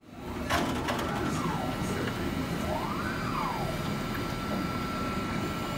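FDM 3D printer running: its stepper motors whine in two rising-then-falling pitch sweeps as the print head moves, over a steady low hum. There are a couple of clicks about half a second and a second in.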